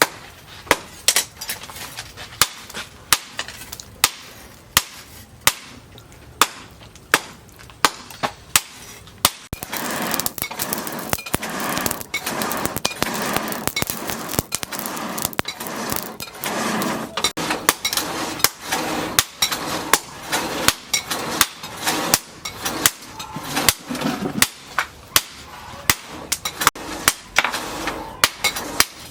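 Hand hammer striking leaf-spring steel in a steady rhythm, a little over one sharp blow a second. From about ten seconds in, a louder steady rushing noise runs under the blows.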